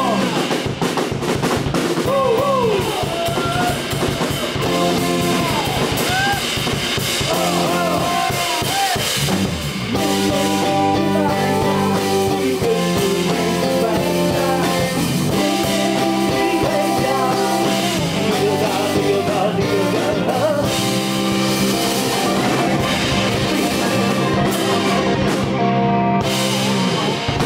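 Live blues band of electric guitar, bass, keyboard and drum kit playing. Lead lines bend in pitch over the first several seconds, then sustained chords ring over steady drumming, and the music cuts off right at the end.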